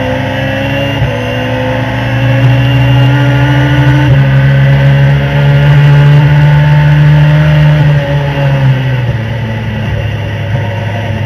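High-revving race car engine heard from the cockpit at full throttle, screaming past 8,000 rpm. Its pitch climbs and steps down at two upshifts, about one and four seconds in. About eight seconds in the driver lifts off for braking and the engine note falls.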